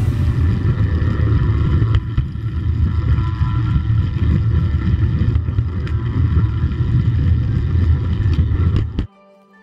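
Steady low rumble and running noise of a garden-scale locomotive travelling along the track, picked up by a camera riding on the train. It cuts off abruptly about nine seconds in.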